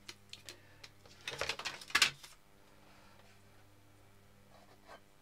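A plastic watercolour palette and brush being handled and set aside on a desk: a few light clicks, then a short clatter about two seconds in.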